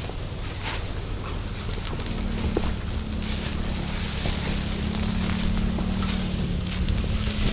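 Scrub branches and saw palmetto fronds brushing and rustling past someone walking through dense brush, with scattered footstep crunches and wind rumbling on the microphone. A low steady hum comes in about two seconds in.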